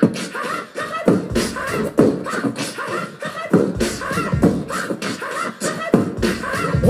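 Human beatboxing into a microphone through a club PA, with no backing track: mouth-made kick-drum hits, snares and hi-hat sounds.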